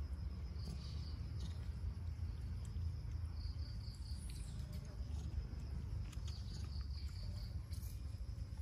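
Insects chirping in short runs of quick, evenly spaced pulses, twice in longer runs, over a steady low rumble and a few faint clicks.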